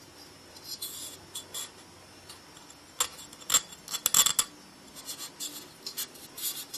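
Fingers rubbing and scratching along the serrated sides of a 1Byone USB 3.0 hub's casing as it is turned in the hands. It comes as a run of short scrapes and clicks, loudest about three to four and a half seconds in.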